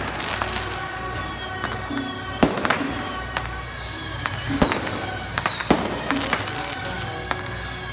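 Fireworks and firecrackers going off: sharp bangs every second or so, with short whistles falling in pitch between them.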